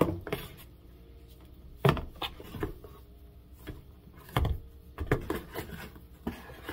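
Oranges being handled in a cardboard box: a handful of irregular, dull knocks as the fruit is picked up, turned over and set back against the cardboard and the other oranges.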